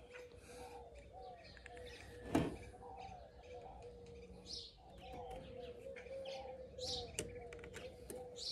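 Birds chirping and twittering, short repeated calls over a faint steady tone, with a sharp knock about two seconds in and a lighter one later.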